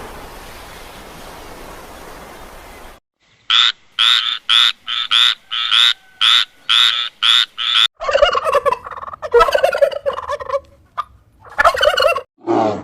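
Animal calls: a steady hiss for about three seconds, then a run of about ten short calls, roughly two a second, then longer warbling calls.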